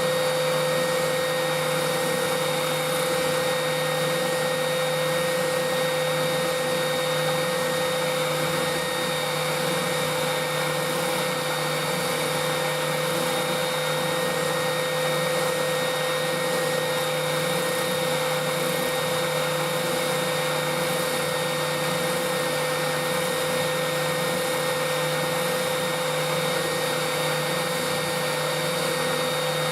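Electric sander running steadily with a constant motor hum and sanding hiss, taking wood down off the workpiece.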